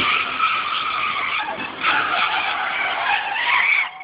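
Tyres of a Nissan Z car screeching continuously as the car is spun sideways in drifting donuts. The screech swells about two seconds in and drops away at the very end.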